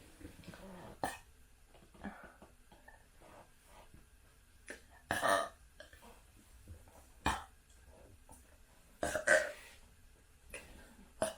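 A person belching in a series of separate burps after chugging carbonated soda, with shorter ones between two louder, longer burps about five and nine seconds in.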